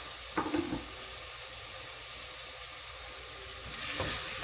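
Tomato, onion and spice masala sizzling in oil in a pressure cooker, a steady frying hiss. A few light knocks come about half a second in, and the sizzle gets louder near the end.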